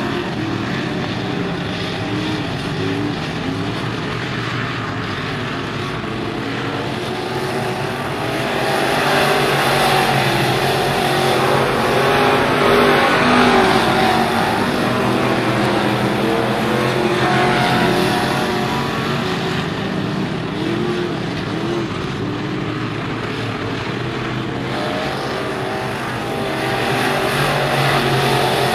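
Several dirt-track modified race cars' engines at racing speed, revving up and down as they go through the turns and down the straights. They swell loudest as the pack passes, about ten seconds in, and again near the end.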